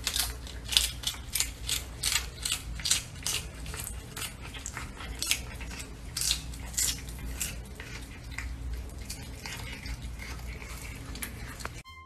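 Cat biting and chewing a piece of crisp green vegetable held in a hand, making sharp wet crunches about two or three a second.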